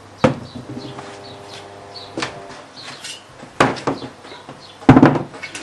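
Four sharp knocks and clunks from hand work on a motorcycle wheel during tyre fitting, the tyre and tools striking the metal rim; the loudest comes near the end.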